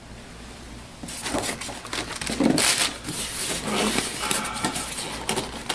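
Rustling, crinkling and scraping of packing materials (paper sheet, plastic bag, styrofoam blocks and cardboard box) being handled, starting about a second in and going on with many small crackles and rubs.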